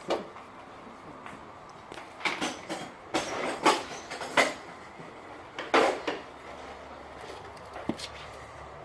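A series of short knocks and scraping handling noises: one at the start, a cluster in the middle and a lone sharp knock near the end.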